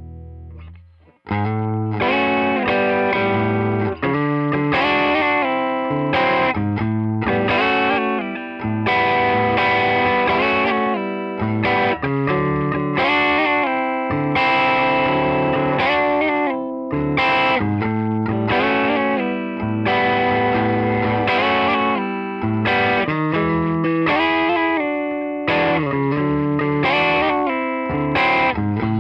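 A 1988 Kramer Night Swan electric guitar played through a Tone King Imperial MK 2 amp on a crunch, lightly distorted setting. A held note fades out over the first second, then continuous playing with frequent note changes follows.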